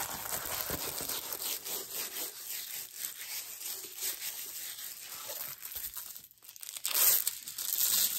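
Crinkling and rustling of a diamond painting canvas's clear plastic cover film and paper as it is unrolled from its paper tube and flattened by hand. The handling goes on with small crackles, pauses briefly near the end, then comes back louder.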